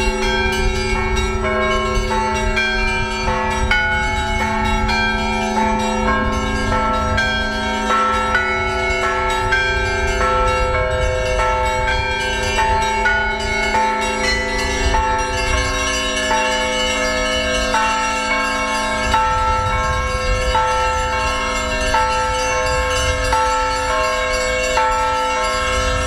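Russian Orthodox church bells rung by a bell-ringer pulling the clapper ropes: small bells struck in a quick, repeating pattern over the steady hum of a larger bell.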